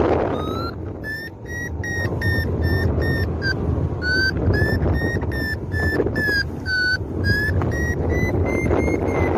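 Paragliding variometer beeping, about three short beeps a second, its pitch dipping and rising with the climb rate: the glider is in rising air. Wind rushes over the microphone beneath the beeps.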